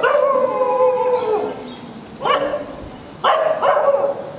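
A dog howling in one long drawn-out call that sinks slightly in pitch, then a shorter call about two seconds in and a burst of howling barks near the end.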